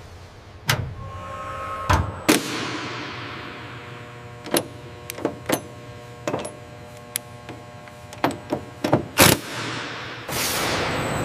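Sharp metallic clicks and clanks of hand-tool work on an aircraft fuselage, about a dozen at uneven intervals, some ringing briefly in a large hall, over a faint steady hum. About ten seconds in, a steady hiss comes in.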